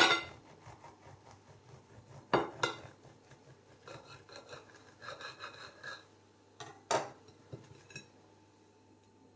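Knife cutting through a rolled chicken shawarma wrap on a plate: sharp clinks of the blade against the plate, loudest at the start, and a rasping back-and-forth sawing in the middle.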